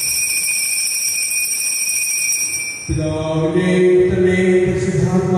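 Background music: a held, high steady tone, then about three seconds in a fuller chant-like passage with low held notes comes in.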